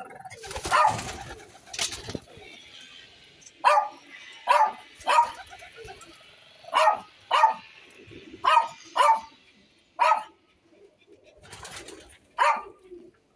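A series of short, loud animal calls, about ten of them, coming singly and in quick pairs from a few seconds in. A brief rustle is heard near the start.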